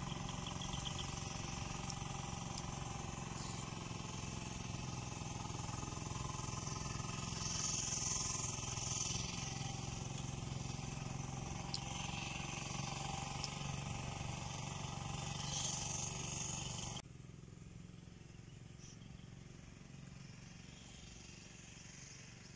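An engine running steadily, with crisp crunching as raw jicama is bitten and chewed. The engine hum cuts off abruptly about two-thirds of the way in, leaving quieter chewing.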